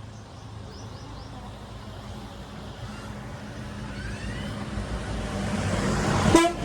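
JCB 3DX backhoe loader's diesel engine running steadily, getting louder in the last few seconds, with one sharp knock near the end.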